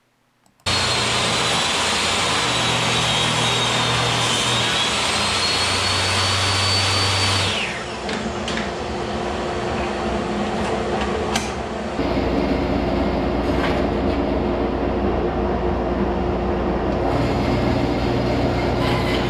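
Portable table saw running and ripping a wooden part, its high motor whine falling away about seven seconds in. After that the noise changes to a Grizzly G0555 band saw running and cutting small tabs from the wood.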